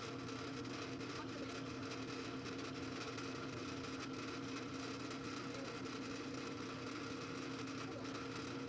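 Drill press motor running with a steady hum while a bit drills the tap-drill hole into a small metal block held in a machine vise.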